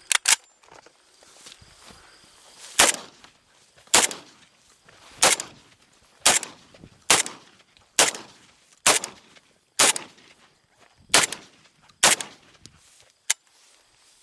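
A gun fired about a dozen times in slow succession: two quick shots at the start, then roughly one shot a second, the last one fainter, near the end.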